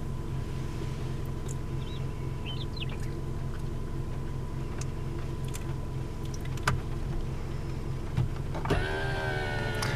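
Car engine idling steadily, heard from inside the stopped car. About nine seconds in, one of the surrounding cattle begins a long, wavering moo.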